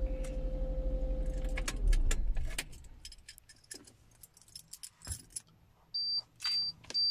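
The car's idling engine inside the cabin, a steady low hum with a faint whine, stops about two seconds in. Light clicks and rattles follow, then a string of short high beeps about two a second near the end.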